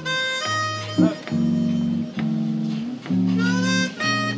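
Harmonica and guitar playing a jazz ballad: the harmonica holds long notes, one bending up in pitch about three seconds in, over plucked guitar.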